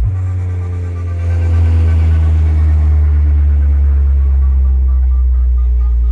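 Large DJ box sound system playing at high volume: a loud, steady, deep bass drone, with a faint repeating higher pattern over it.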